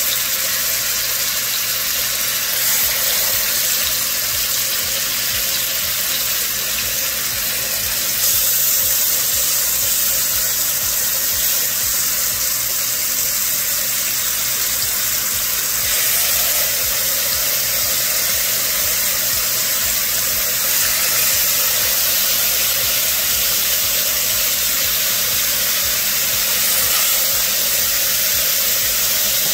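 Oxtail sizzling as it fries in a pot of hot coconut oil and caramelized sugar: a steady hiss that gets a little louder about eight seconds in.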